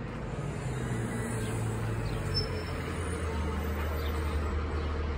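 Street ambience: a vehicle engine hums steadily at a low pitch, dropping slightly in pitch about halfway through, with a few faint bird chirps.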